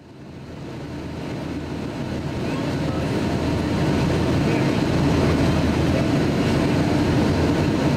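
Steady cabin noise of a Boeing 757-200 in flight, heard from a window seat over the wing: the hum of its Rolls-Royce RB211 engines and the rush of airflow. It fades in over the first four seconds, then holds steady.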